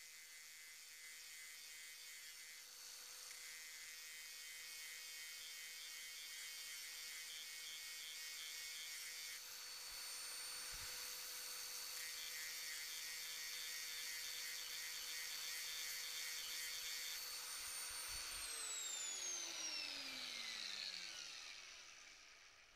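Angle grinder running with a steady high whine while grinding a small hardened-steel pawl from a Sturmey-Archer three-speed hub to sharpen its worn tip. About 18 seconds in it is switched off, and its whine falls steadily in pitch as the disc spins down.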